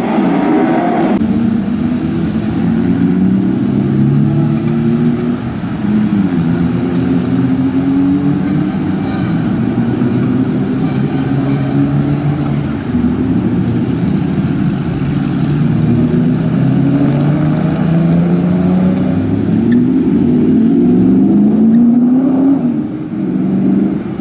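Historic racing cars' engines at high revs, accelerating and passing by one after another. The pitch climbs and drops repeatedly with the gear changes.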